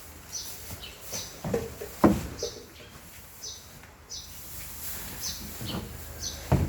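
Bird chirping over and over in short, high, falling chirps about once or twice a second. Two loud knocks land among them, one about two seconds in and one near the end.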